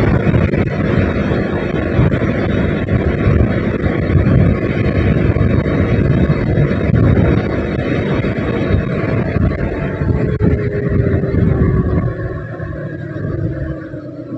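Wind buffeting the microphone over a sport motorcycle's engine while riding at road speed. It grows quieter over the last two seconds as the bike slows.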